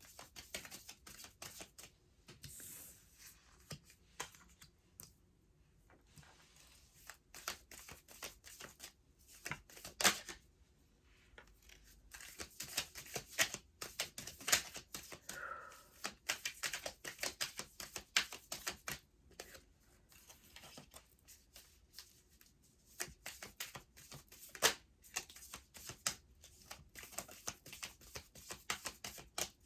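A deck of tarot cards being shuffled by hand: a long, uneven run of quick card snaps and clicks, easing off briefly twice.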